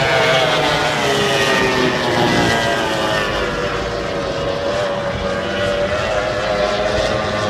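Racing powerboat's engine running at high revs as the boat speeds past, its pitch falling over the first few seconds as it goes by, then holding and rising a little near the end.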